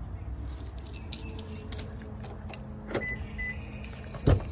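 Car key jingling in the hand, then two short high electronic beeps about three seconds in from the 2021 Toyota C-HR as its keyless-entry locks are worked, and a sharp clunk near the end.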